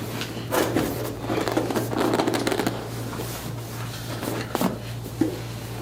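Rustling and shuffling as a person is rolled over on a chiropractic table, with a couple of short knocks near the end, over a steady low hum.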